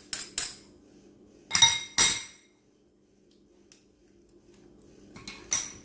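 A metal spoon and ceramic and glass dishes clinking. A few light taps, then two loud ringing clinks close together about a second and a half in, a quiet stretch, and more light taps near the end.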